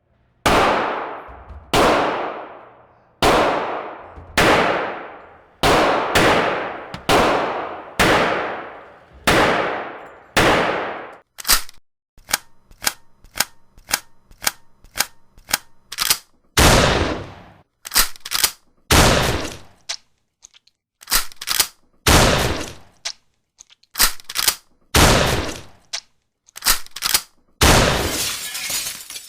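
Gunshots from a series of different firearms. First come single shots about a second apart, each with a long echoing tail. Then a rapid run of lighter shots, about five a second, and then shots in pairs and small groups.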